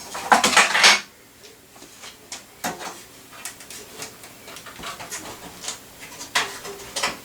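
Hardware being handled while fitting parts into a PC case: a loud rustling clatter for about the first second, then scattered light clicks and knocks, and more clatter near the end.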